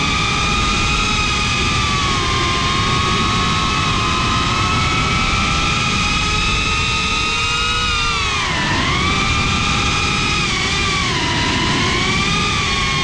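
FPV drone's brushless motors and propellers whining steadily, heard from the onboard GoPro, with a rushing noise of wind on its microphone underneath. The pitch dips sharply about two-thirds of the way in and again shortly after as the throttle eases off and comes back.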